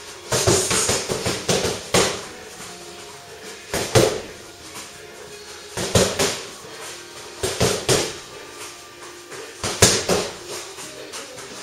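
Gloved strikes landing on a free-standing punching bag: short flurries of quick hits and single heavy blows, every two seconds or so, with quiet gaps between.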